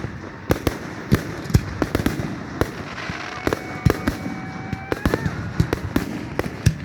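Fireworks going off in a rapid, irregular series of sharp bangs, several a second. A steady whistling tone is held for about two seconds midway through.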